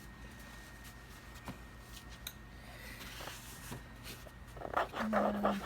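Handling noise from a foot stool being turned upright and worked on: a few faint knocks, then a louder spell of rustling and scraping near the end.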